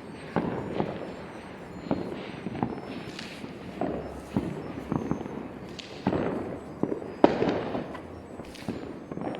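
Distant New Year's fireworks and firecrackers going off across a city: a steady scatter of bangs and pops at irregular intervals, the sharpest about seven seconds in, over a low rumble of far-off explosions.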